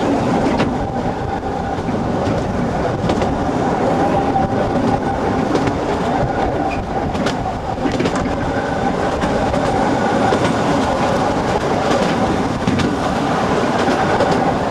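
Open carriage of a 50 cm narrow-gauge mountain railway running: a steady rumble and clatter of wheels on the track with a few sharp clicks along the way. A thin high whine comes in about halfway through.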